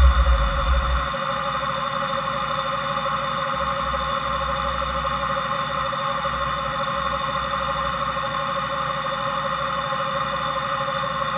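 Fadal VMC5020A CNC vertical machining center running without cutting: a steady machine hum made up of several constant tones, with low rumbling at the start and again through the middle.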